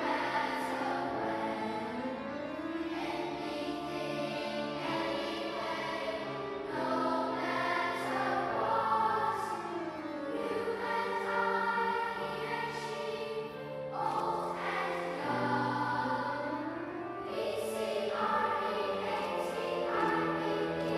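Children's treble choir singing, accompanied by piano and violin.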